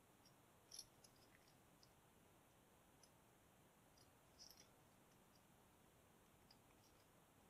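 Near silence with a few faint, scattered clicks of a lock pick working the pin stack of a Weiser lock. The loudest click comes about a second in, and a small cluster comes a little past halfway.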